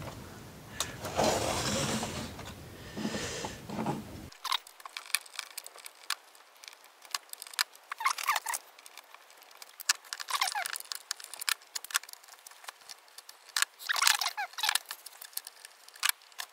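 Hands and a screwdriver working on the plastic and metal body of a Sony DSR-370 camcorder. For the first few seconds there is dense rubbing and sliding as the camera is handled. After that come scattered sharp clicks, taps and short scrapes.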